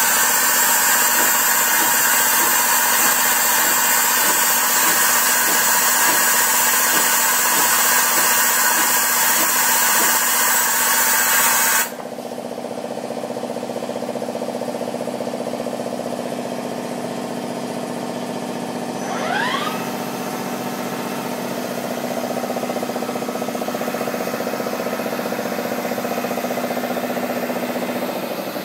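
Miyano Kira KSV-35 vertical machining centre running. A loud steady hiss over the machine's hum cuts off suddenly about twelve seconds in, leaving a steady hum with one short rising whine about twenty seconds in.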